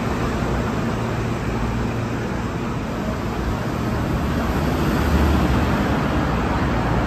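Steady rumble and low hum of a light-rail station platform, with a train standing at the platform screen doors; it swells a little about five seconds in.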